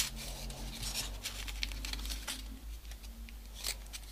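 Folded paper origami modules rustling and rubbing as fingers slide a triangular piece into place between others, with a few short crisp ticks of paper edges.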